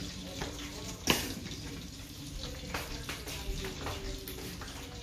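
Minced garlic frying in clarified butter: a steady sizzle with scattered small crackles. One sharp knock about a second in stands out above the rest.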